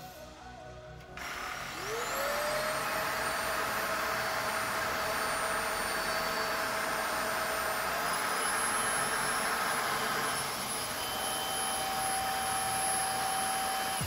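Puweike cordless stick vacuum switched on: its motor whines up to speed within a second and runs steadily with a high whine. About eight seconds in its pitch steps up, and at the end it spins down as it is switched off.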